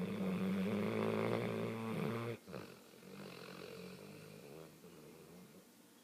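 A sleeping dog snoring: one loud, pitched snore for about two seconds that stops sharply, followed by a quieter, longer breath that fades away.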